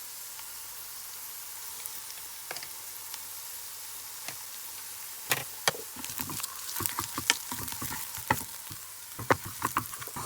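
Onions and garlic paste sizzling in hot oil in a pan. From about halfway through, a spoon knocks and scrapes against the pan in quick irregular clicks as the mixture is stirred.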